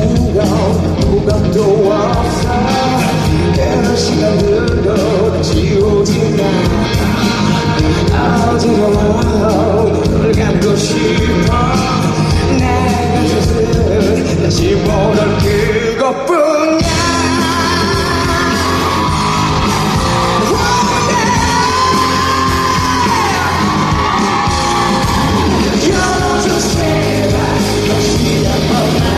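Live rock band music in a large hall, with a high, wavering lead line held over the band. The music drops out for a moment about sixteen seconds in, then comes back in full.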